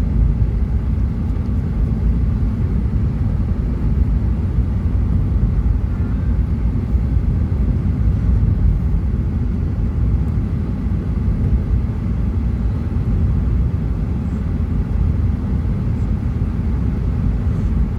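Steady low road rumble inside a moving car's cabin: tyre and engine noise at road speed.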